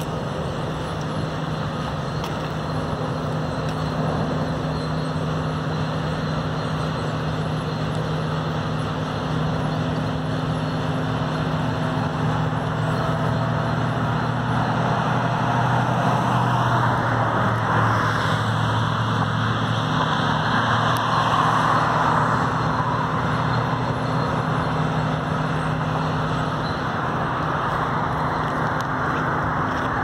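Steady low industrial hum from a sawmill's cyclone dust collector, with two low tones held unchanging throughout. Midway a vehicle passes, its noise rising and falling over several seconds and briefly louder than the hum.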